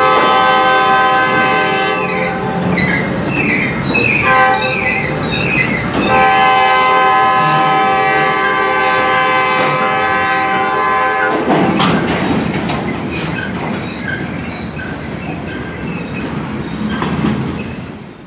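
Freight cars rolling past with a clickety-clack of wheels over the rail joints, while a locomotive air horn sounds in separate blasts: one at the start, a shorter one about four seconds in, and a long one from about six to eleven seconds. After the horn only the rumble of the passing cars remains, fading near the end.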